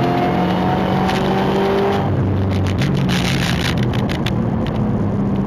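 Dodge Hellcat's supercharged V8 heard onboard at full pace on a race track. It pulls with a slowly rising pitch, then breaks off about two seconds in and settles into a steadier, lower drone.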